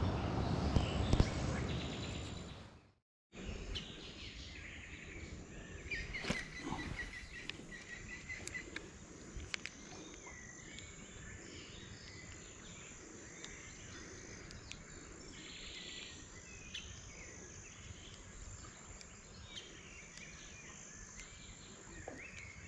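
Riverbank ambience: small birds chirping, with a quick trill about six seconds in, over a steady high insect buzz. A louder rough noise fills the first three seconds and stops abruptly.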